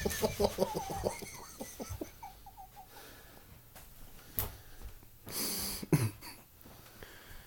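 Stifled, wheezing laughter: a quick run of breathy pulses that trails off over the first couple of seconds, then a few short pitched giggles. Later come a click, a breathy burst and a single knock.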